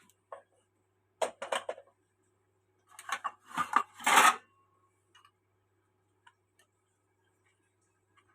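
Close-up handling noise: a quick cluster of short clicks and rustles about a second in, then a longer, louder cluster around three to four seconds in, with near quiet on either side.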